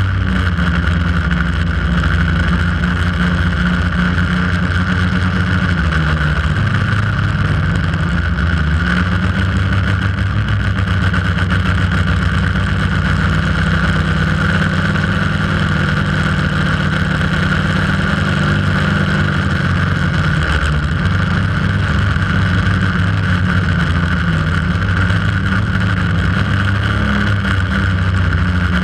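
Quadcopter drone's motors and propellers buzzing steadily, heard from the GoPro camera mounted on it; the pitch shifts slightly a couple of times as the throttle changes.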